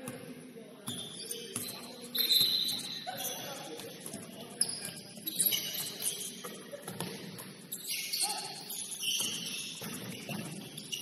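Basketball shoes squeaking on the gym court, many short high squeaks in quick succession, with voices in the background.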